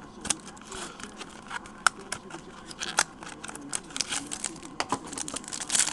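Plastic wrapper of a 2009 Upper Deck Sweet Spot card pack crinkling and crackling as hands work it open, a rapid, irregular run of sharp crackles that grows busier toward the end.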